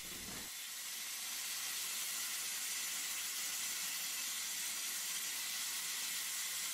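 Steady hiss of a glassblower's bench torch flame playing on glass held in it.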